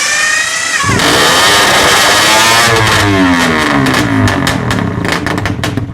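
Two early-1950s BMC 125 cc single-cylinder racing motorcycles being revved hard, the pitch climbing and falling with the throttle. Sharp exhaust cracks come thick and fast over the second half.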